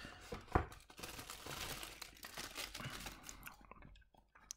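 Thin plastic wrapping crinkling and rustling as a model locomotive is lifted out of its polystyrene packaging and unwrapped, with a single light knock about half a second in. The rustling dies away near the end.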